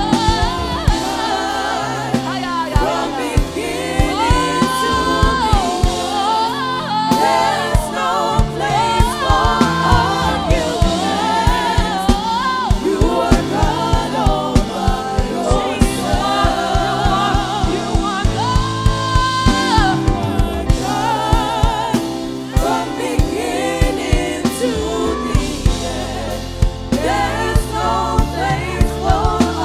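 Live gospel worship music: singers holding long notes over a band with bass and a steady drum beat.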